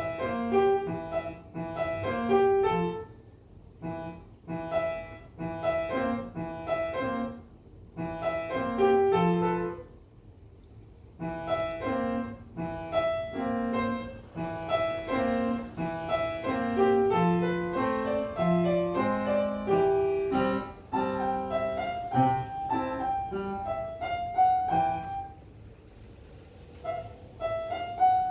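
Solo piano background music: a gentle melody over broken chords, with two short pauses.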